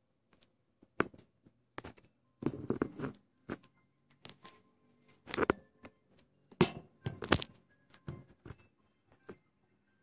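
Irregular knocks and scrapes of a metal bar striking and scraping the wooden roof battens and clay tiles as a bee nest is dug out from under the roof, with short dense scraping runs between sharp single knocks.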